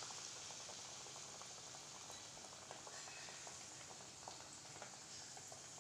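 Bajji-batter-coated idli pieces deep-frying in hot oil in a kadai: a faint, steady sizzle and bubbling with small scattered crackles.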